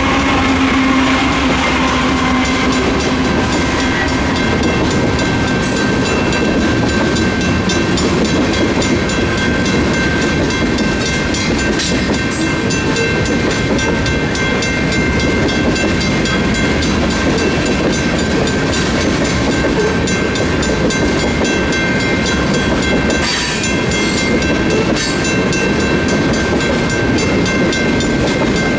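Freight train rolling past over the rails, a steady rumble of wheels with clickety-clack, while the crossing's warning bells ring on with an even repeating beat.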